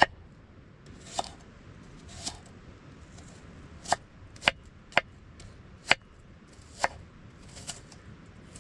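Kitchen knife chopping a red onion on a wooden cutting board: about nine sharp knocks of the blade on the board, spaced irregularly, roughly a second apart.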